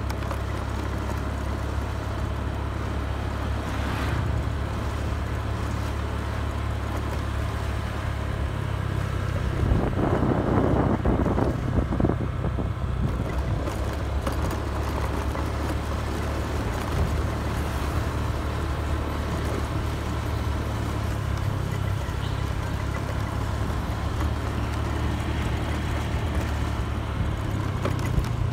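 Steady low rumble of a vehicle riding along a road, with a louder, rougher stretch about ten seconds in that lasts two or three seconds.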